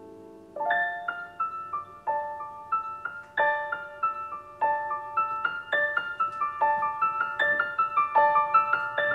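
Solo piano music: the last chord fades, then about half a second in a light, flowing line of single high notes begins and grows busier near the end.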